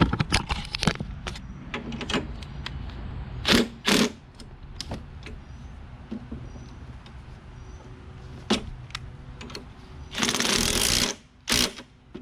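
Clicks and knocks of hand tools and metal parts while a self-propelled lawn mower's drive cable is adjusted, with two louder knocks about four seconds in. A one-second hiss comes near the end, over a steady low hum.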